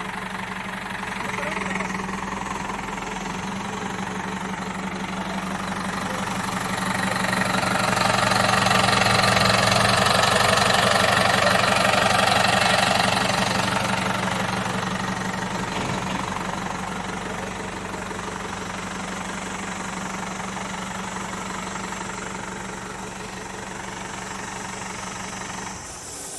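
Cat 424B backhoe loader's diesel engine running steadily at idle, swelling louder for several seconds in the middle before settling back. The sound stops abruptly at the very end.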